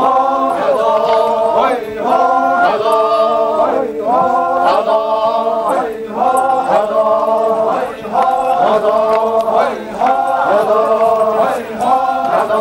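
A chorus of Sumi Naga men chanting a war-dance song together. A short phrase is repeated about every two seconds, with a brief break between phrases.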